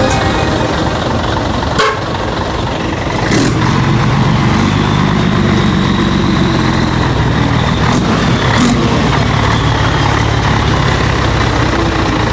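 Old Scania truck's diesel engine running with a steady, loud low drone, its sound likened to a plane. A few brief sharp knocks cut through it, one about two seconds in and others later.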